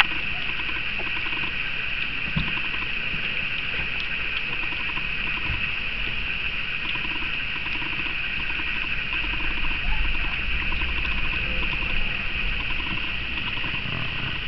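Miniature dachshund puppies lapping and smacking at soft cottage cheese in a shared dish: a quick patter of small wet clicks over a steady high hiss.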